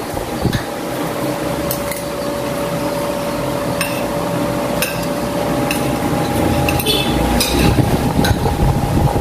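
Spoons and forks clinking and scraping against plates as two people eat, about a dozen short clinks scattered irregularly, over a steady background hum.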